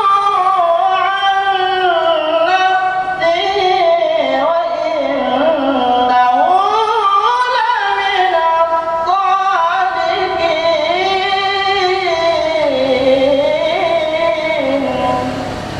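A man's solo Quran recitation (tilawah), sung in long melismatic phrases whose held pitch wavers and glides, climbing about halfway through. The phrase ends near the end.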